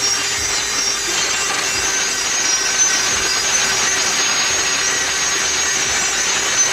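Corded handheld rotary tool running steadily, grinding to sharpen a metal blade: an even, unbroken grinding hiss over a constant motor whine.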